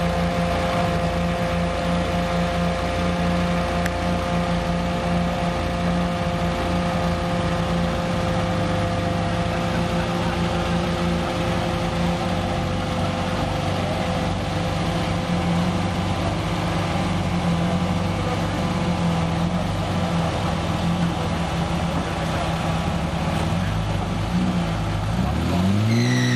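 Unimog 404 S trial truck's engine running steadily at low revs as it crawls over rocks, then revving up in a rising sweep near the end.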